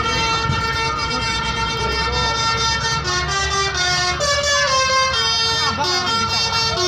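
Indonesian tour bus 'telolet' horn, a multi-tone air horn, playing a quick melody of held notes that step up and down in pitch, with voices calling out over it and a low engine rumble beneath.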